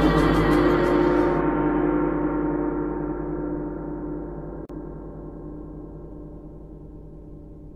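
A deep gong ringing out after a single strike and slowly dying away, its higher overtones fading first while the low hum lingers. A brief click near the middle.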